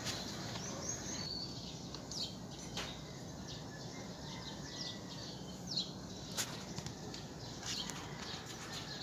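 Small birds chirping now and then in short high calls over a steady background hiss, with a couple of sharp clicks.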